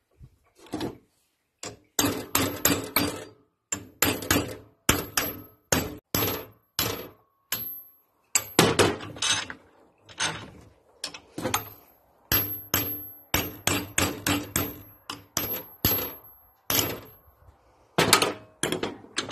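Hammer tapping on a screwdriver held against the bendix drive of a Paris Rhone starter clamped in a vise: dozens of quick metal-on-metal taps in short runs, several leaving a thin metallic ring.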